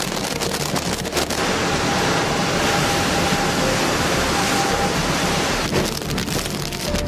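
Hurricane wind and driving rain: a loud, dense, steady roar of gusting wind and rain buffeting the microphone. The noise changes abruptly about six seconds in.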